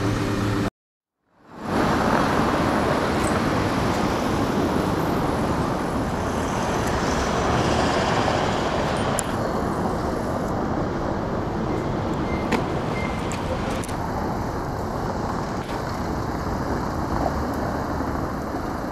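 Steady street noise of traffic and machinery at a road-works site, an even rumbling hiss with a few faint knocks. It opens with a brief diesel engine hum that cuts out to silence for about half a second before the noise fades back in.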